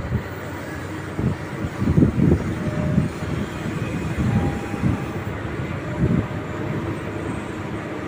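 Heavy diesel machinery rumbling: a Komatsu PC200LC long-reach excavator working as its boom swings and lowers, with irregular low thuds over the steady engine noise.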